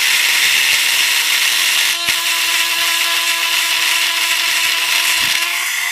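Small electric chainsaw-sharpening grinder running with a steady whine while its stone grinds a chain cutter, giving a high grinding hiss. The grinder is worn out, its bearings rattling. A short click about two seconds in.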